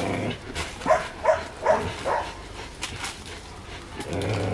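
Rottweiler barking in a quick run of about five short barks, roughly three a second, while working a spring pole. A few sharp clicks follow near three seconds in.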